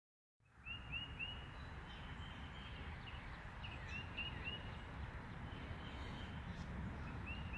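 A bird calling outdoors in short chirps, three in quick succession, repeated about three times, over a steady low background rumble.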